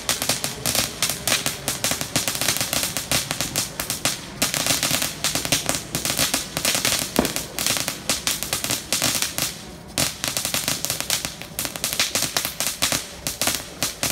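Firecrackers going off in a long, dense run of rapid sharp pops, with a brief lull about ten seconds in before the popping picks up again.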